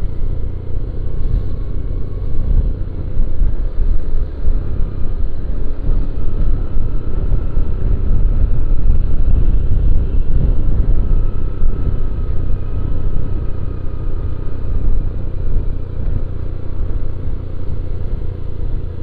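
Wind buffeting on the microphone over the engine and road noise of a Honda Beat automatic scooter riding downhill, with a faint whine through the middle.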